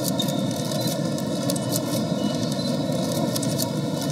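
Steady, dense background noise of an exhibition hall, with scattered faint clicks.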